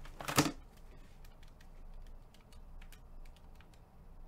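A short, loud knock or rustle about a third of a second in, followed by a series of light, irregular clicks.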